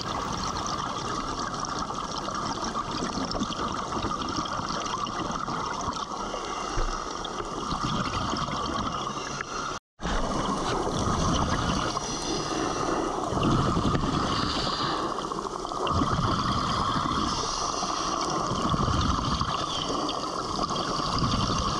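Underwater noise picked up by a diver's submerged camera: a steady rushing hiss with bubbling. The sound cuts out briefly about ten seconds in.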